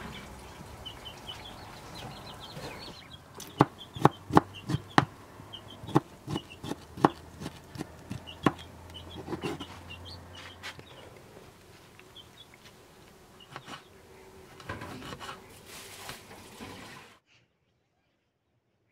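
Kitchen knife chopping tomatoes on a cutting board: about ten sharp knocks, irregular, two or three a second, with small high chirps in the background. All sound cuts off a second or two before the end.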